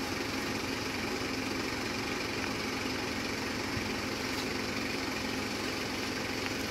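An engine idling steadily: an even, unchanging hum with one constant low tone.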